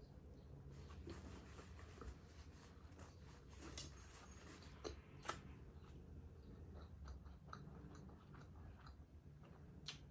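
Faint chewing and mouth sounds of someone eating soft sweets, with a few small sharp clicks over a low hum.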